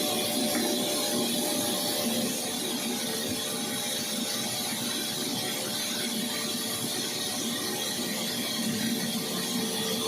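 Steady mechanical hum with an even hiss and a few steady tones.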